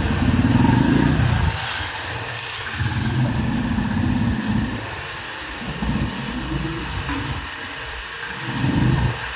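Several motorcycles and scooters riding slowly in a group, a Royal Enfield Bullet among them. Their engines run with a low note that swells and fades every couple of seconds.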